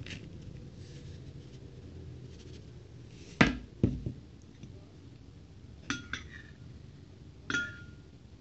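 Kitchenware being handled on a counter: five sharp clinks and knocks, coming as two, then a close pair, then a last one near the end that rings briefly like glass or china.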